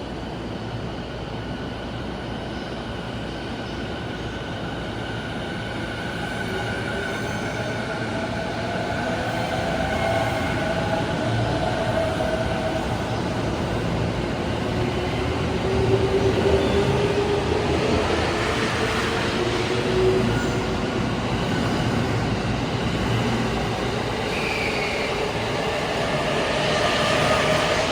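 JR East E217 series electric train pulling away and accelerating: the traction motor whine rises gradually in pitch while the wheel and rail rumble grows louder.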